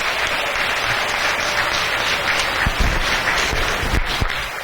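Assembly audience of schoolchildren clapping in applause for students just recognised as good citizens, dying away near the end, with a couple of low thuds in the middle.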